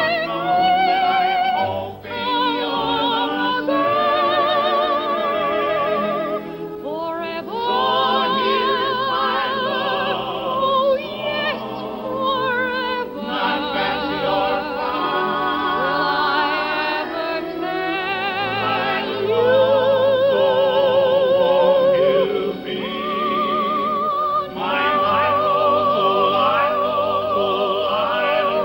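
A soprano singing with a wide vibrato over a male barbershop quartet's close harmony. The sung lines are held and continuous, with only brief breaths between phrases.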